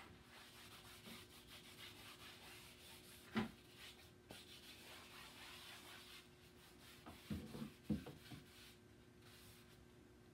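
Wadded paper towel rubbing over a stretched canvas, scrubbing a thin wash of oil paint thinned with mineral spirits onto it; faint. A light knock about a third of the way in and a few soft bumps later, as the canvas shifts on the wooden easel.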